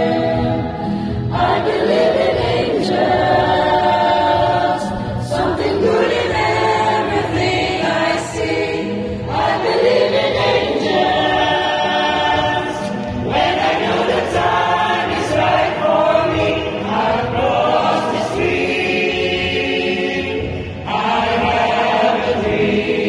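A mixed choir of men's and women's voices singing together in harmony during rehearsal. The singing comes in long held phrases of about four seconds, with brief breaks between them.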